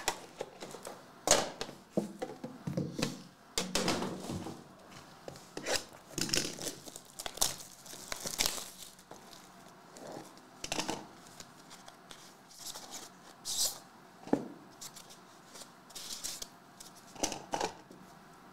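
Hands opening a metal trading-card tin and unwrapping the sealed pack inside: irregular clicks, rustling and tearing of the wrapper, then cards handled against each other.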